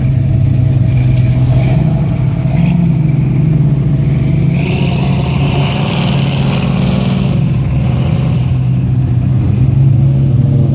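Car engine running steadily close by, with a swell of hissy noise from about halfway through that lasts some three seconds.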